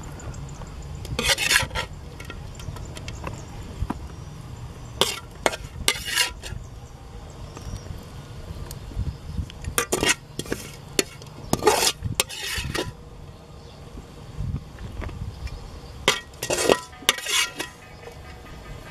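Metal spatula scraping and clanking against a steel wok as stir-fried fish is scooped out onto a leaf: about ten short scrapes at irregular intervals, a few seconds apart.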